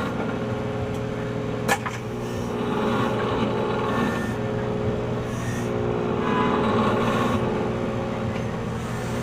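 A small motor running steadily, with a wavering whir over a constant hum. There is one sharp click just under two seconds in.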